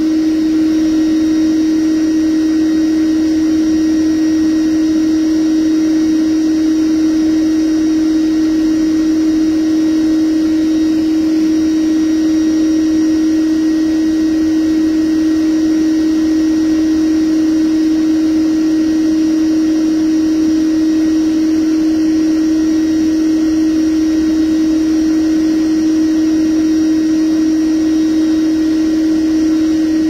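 Bee vacuum running steadily, one constant hum over a rush of air, as its hose sucks honey bees off the comb.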